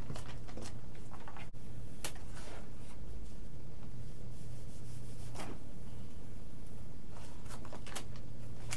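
Rubbing and short scratchy scrapes as a hobby covering iron is worked over a vinyl decal on cardboard and the heat-loosened decal is peeled up, over a low steady hum.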